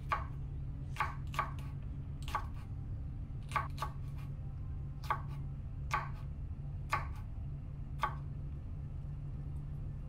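Chef's knife slicing hot peppers into rings on a wooden cutting board: sharp taps of the blade striking the board, about a dozen, irregularly spaced and often in quick pairs, stopping about eight seconds in. A steady low hum runs underneath.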